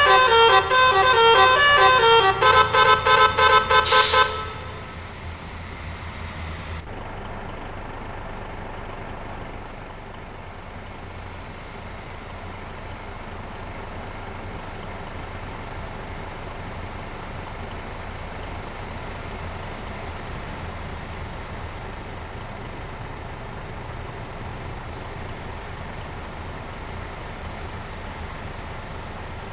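Basuri telolet multi-tone bus air horn playing a quick stepping melody, then a rapid run of short toots about five a second, stopping about four seconds in. After that, a steady, much quieter rumble and hiss of vehicle running noise.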